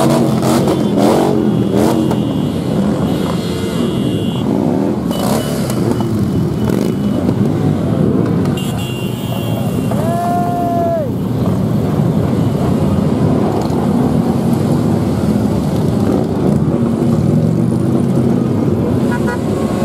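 A mass of motorcycles riding past, their engines running and revving up and down in a continuous din. A horn sounds once for about a second, about ten seconds in.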